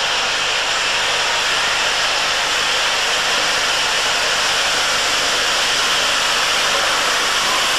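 Steady, loud hiss of steam from GWR 4300-class 2-6-0 locomotive No. 7325 as it drifts slowly into the platform, with no exhaust beats heard.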